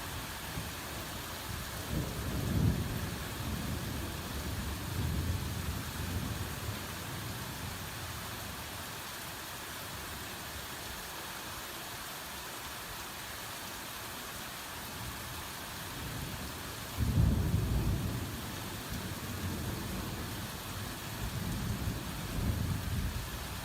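Heavy rain falling steadily, with thunder rumbling low several times; the loudest rumble comes in suddenly about two thirds of the way through.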